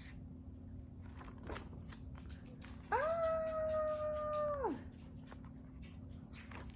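A woman's voice drawing out one long, steady "ahhh", the wind-up of a pretend sneeze, about three seconds in; it holds for nearly two seconds and drops away at the end. Faint ticks and rustles otherwise.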